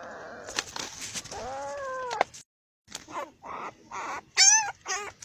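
Puppy crying in a string of short, high-pitched yelps and whines, each bending in pitch, the loudest about four and a half seconds in. Rustling and knocks from the sheet and debris being moved come during the first two seconds.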